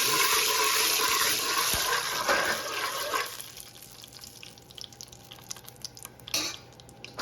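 Loud sizzling and spattering of brown sugar caramelising in hot oil in a pot. It dies down about three seconds in, leaving faint crackles.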